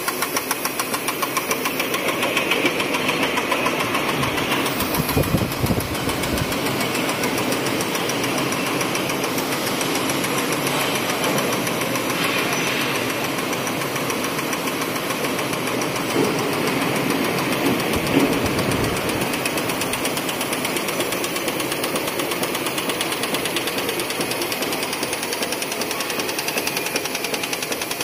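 High-speed flatbed label die-cutting machine running, its cutting press stamping in a fast, even rhythm as the label web feeds through, with a few heavier knocks around five and eighteen seconds in.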